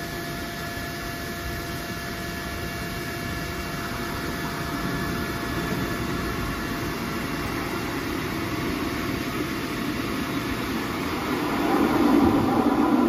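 Euskotren 900 series electric train approaching through the tunnel into an underground station, its low running rumble building to a peak near the end. Underneath, a steady hum with faint whining tones, fading out by the middle, comes from the stationary train's equipment alongside.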